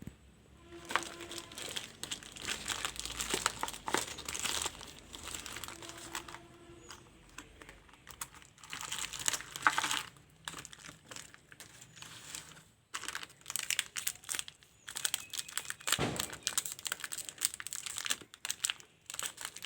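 Packaging being crinkled and torn open by hand: irregular bursts of crackling with short pauses between them.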